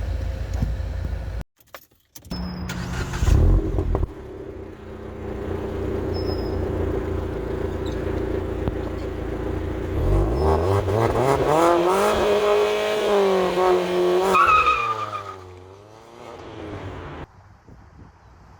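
Car engine running, then accelerating with rising pitch from about two-thirds of the way in; there is a shift-like step before the revs fall away and it quietens near the end.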